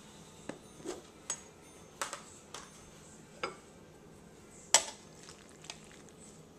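Ceramic bowls and plates knocking and clinking as they are handled, with a metal serving spoon against a bowl: a string of separate sharp knocks, the loudest about three-quarters of the way through.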